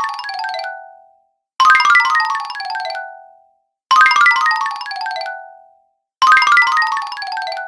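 Cartoon 'fail' sound effect: a quick run of bright chime-like notes stepping down in pitch, ending on a lower held note that fades out. It repeats about every two and a quarter seconds, sounding three times in full after the tail of an earlier one.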